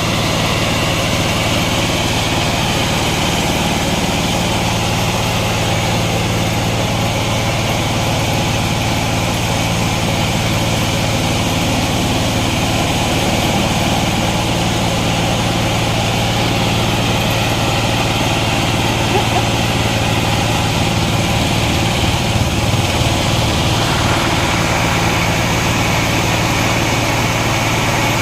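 Engine of a homemade circular-saw sawmill running steadily, with a slight change in its sound about 22 seconds in.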